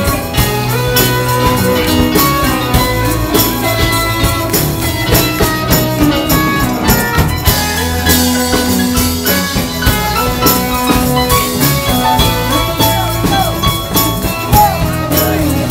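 Live band playing loud music: a Stratocaster-style electric guitar over drums with a steady beat.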